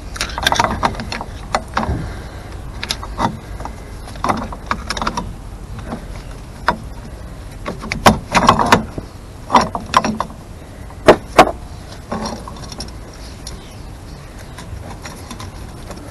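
Irregular metallic clicks, taps and clanks as a screwdriver pries the adjusters off a Morris Minor 1000's rear drum brake shoes and the spring-loaded shoe is worked off the backplate. There is a loud cluster of clanks about halfway through and two sharp clicks a few seconds later.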